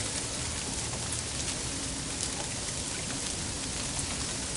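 Steady hiss of mixed freezing rain and rain falling, with faint scattered ticks of drops and ice striking.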